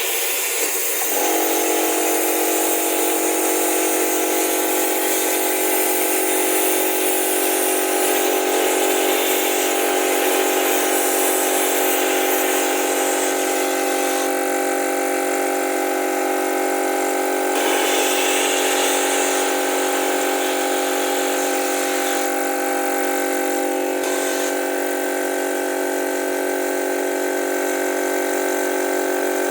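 Compressed air hissing through a compressor-powered venturi vacuum gun, with a steady motor hum that sets in abruptly about a second in, typical of the air compressor starting up. The hiss changes in tone a few times.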